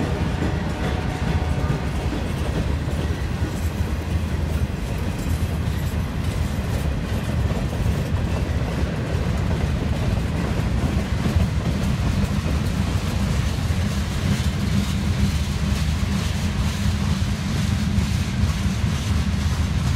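Freight cars of a manifest train rolling past at close range: a steady rumble of steel wheels on rail, with scattered clicks as the wheels pass over the rail joints.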